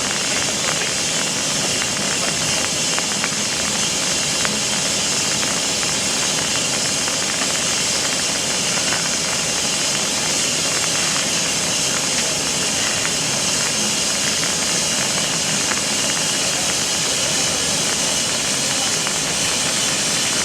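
C57 1 steam locomotive letting off steam in a loud, steady hiss.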